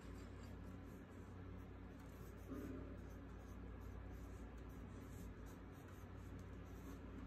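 Pencil lead scratching faintly on paper in short, irregular strokes as a figure is sketched.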